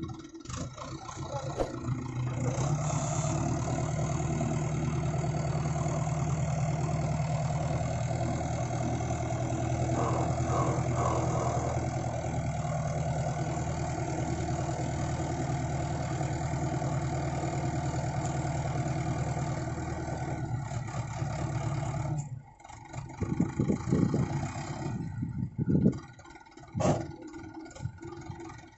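Mahindra Arjun 555 DI Ultra tractor's four-cylinder diesel engine running steadily under load while its hydraulics raise a loaded tipping trailer. About 22 seconds in the engine sound drops away and irregular knocks and clatter follow.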